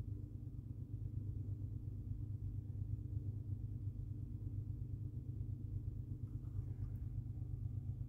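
Freight train passing at a distance: a steady low rumble, muffled through window glass.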